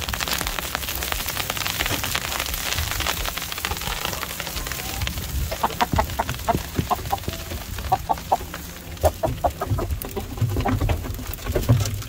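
Freezing ice rain hitting an umbrella, loud at first. From about halfway through, chickens cluck in a run of short calls.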